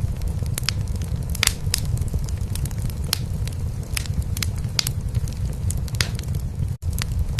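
A cat purring steadily and low, layered with a wood fire crackling in a fireplace, its sharp pops scattered irregularly. The sound cuts out for an instant near the end.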